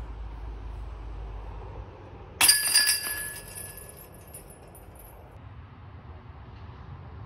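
Disc golf disc striking the hanging chains of a metal basket target: a sudden jingle of chains about two and a half seconds in, ringing and fading away over about two seconds. The disc drops into the basket, so the putt is made.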